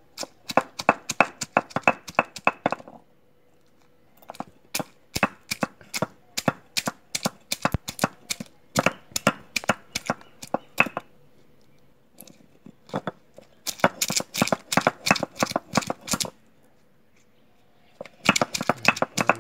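Stone roller of an ammikkal grinding stone knocking down on field crabs on the stone slab, lightly crushing the crab pieces and claws for crab rasam. Sharp stone-on-stone knocks come several a second, in four runs with short pauses between them.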